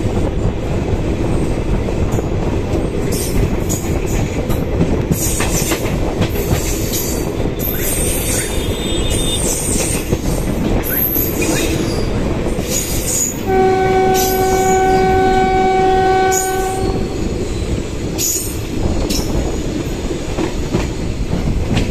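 A passenger train running along the track, heard from aboard a coach: a steady rumble with the wheels clicking and squealing over the rails. A little past halfway a single steady horn blast sounds for about three seconds.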